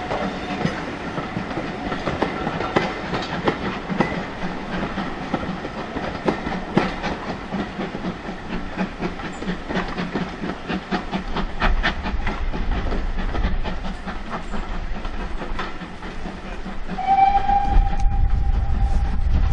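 Steam-hauled passenger train pulling away, its coach wheels clicking over rail joints in a steady clickety-clack. About two and a half seconds before the end, the GWR Manor-class 4-6-0 locomotive sounds its steam whistle, one steady note held for a couple of seconds over a deepening low rumble.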